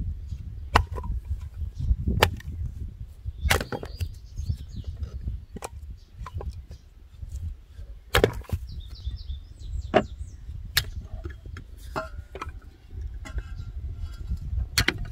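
Hatchet splitting firewood on a wooden chopping block: sharp chops and the crack of splitting wood every second or two, over a steady low rumble, with a few short bird chirps in between.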